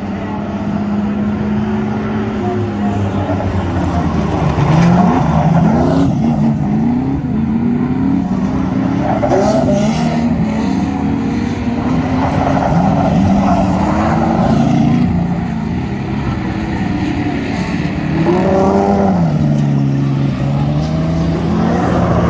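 Standard saloon race cars lapping a dirt speedway, several engines rising and falling in pitch as they accelerate and back off through the corners.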